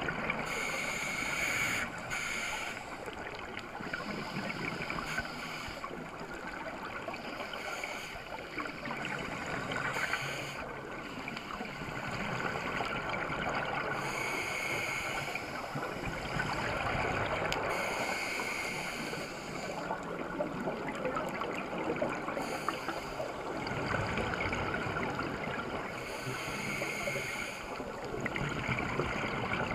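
Underwater sound of a scuba diver breathing through a regulator, with recurring hissing breaths and rushing, gurgling bursts of exhaled bubbles.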